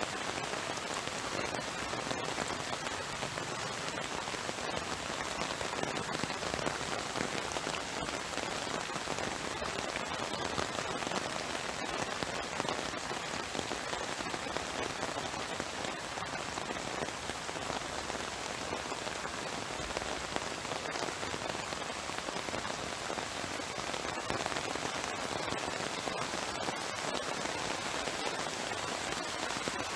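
Heavy rain falling steadily, a dense spatter of drops hitting surfaces all around.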